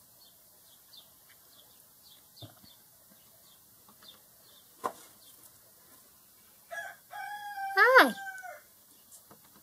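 House sparrows chirping faintly, about three chirps a second. A sharp knock comes near the middle, and about seven seconds in a loud, drawn-out call rises and falls in pitch for nearly two seconds.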